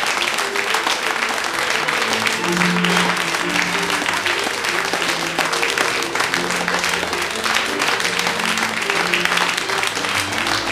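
Audience applauding with steady, dense clapping over music of slow, held low notes.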